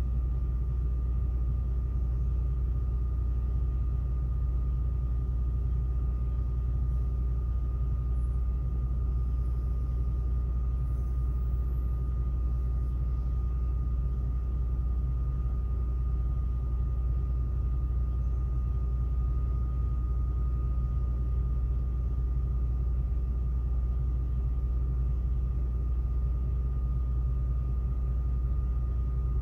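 Idling semi truck's diesel engine, a steady low rumble with a faint constant high whine above it and no change throughout.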